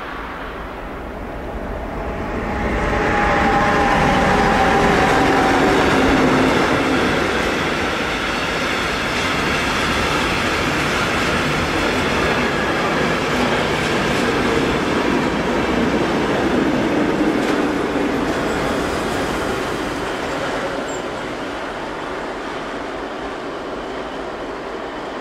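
Electric-hauled freight train of covered wagons passing close by and rolling away, a steady rumble of wheels on rail. It swells about two seconds in, is loudest for the next few seconds, then holds steady and eases off near the end as the train with its rear locomotive draws away.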